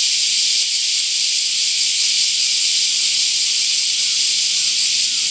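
A chorus of bear cicadas (kumazemi) calling from the trees, a loud, dense, unbroken high-pitched buzz. Faint short chirps recur in the background about once a second.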